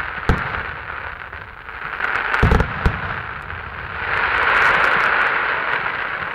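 Fireworks display: aerial shells bursting with deep bangs about a third of a second in and a cluster around two and a half to three seconds in, over a continuous hissing, crackling noise that swells louder near the end.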